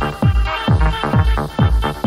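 Electronic dance music from a DJ set: a steady four-on-the-floor kick drum at about two beats a second, each hit dropping in pitch, under a sustained synth line.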